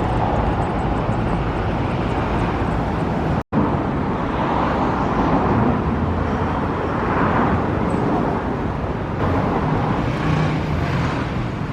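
Steady outdoor background noise with no clear tones, broken by a brief dropout about three and a half seconds in.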